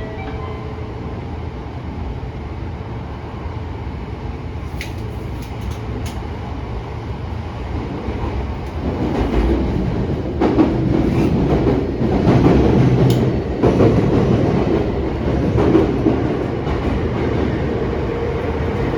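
Cabin running noise of a Tokyo Metro Tozai Line 05 series subway train under way: a steady rumble of wheels on rail with a few sharp clicks about five seconds in. From about nine seconds in it grows louder and rougher, with more knocks and rattles.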